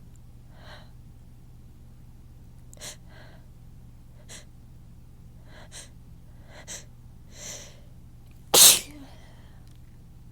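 A person's sneeze buildup: a series of short, catching in-breaths over several seconds, then one loud sneeze near the end.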